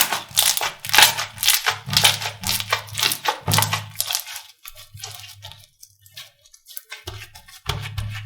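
Slime being squeezed and pressed by hand, making dense crackling and popping clicks. The sound is thickest over the first four seconds, thins out, then comes again in a burst near the end.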